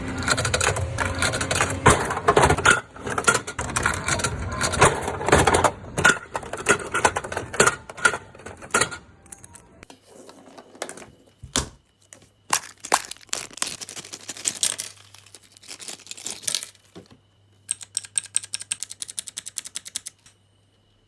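Small hard plastic parts being handled: dense rattling, rustling and clicking, then separate clicks, and near the end a fast, even run of clicks like mini keyboard keys being pressed.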